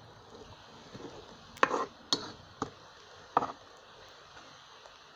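A few sharp, irregularly spaced knocks of kitchen utensil work during cooking, the strongest four between about one and a half and three and a half seconds in.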